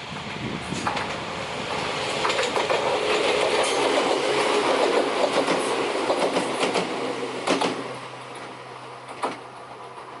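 An Ohmi Railway electric train passing over a level crossing, its wheels clicking and clattering over the rail joints. The sound builds to a peak about halfway through, then fades off over the last few seconds.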